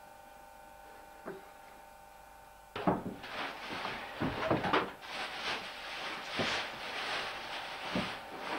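Faint steady hum with a single click, then from about three seconds in, repeated clinks and knocks of metal billy pots and mugs being handled on a hut bench, over a steady hiss.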